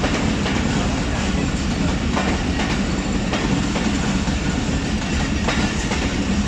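Passenger train rolling slowly past a station platform, its wheels clicking now and then over the rail joints against a steady rumble.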